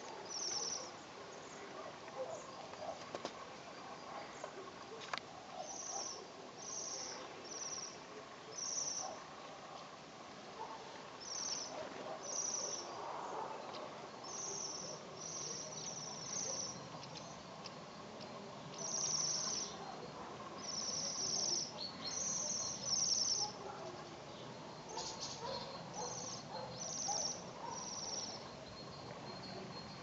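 A flock of Bohemian waxwings calling: high, thin trills of about half a second each, repeated many times and sometimes running together.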